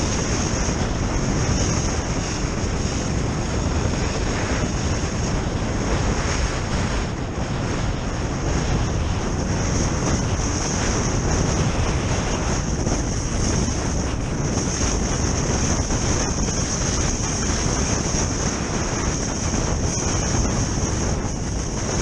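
Steady wind rushing over the microphone of a camera carried by a kite-skier moving fast over snow, with a constant high hiss on top and the skis scraping on the hard snow underneath.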